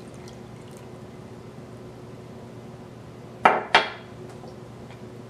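The last of the chilled water trickling from a glass measuring cup into flour in a stainless steel bowl, then two sharp clinks about three and a half seconds in, a quarter second apart, as the glass cup is set down.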